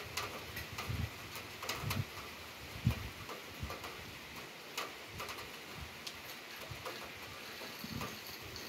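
Rain falling steadily, with irregular sharp ticks of drops striking nearby hard surfaces and a few low thuds in the first few seconds.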